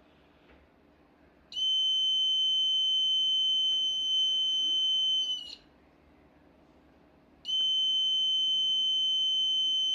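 Buzzer of a homemade Arduino smoke-detector alarm sounding a steady, high-pitched tone twice, each time for about four seconds with a short pause between. This is the alarm going off as the sensor detects smoke.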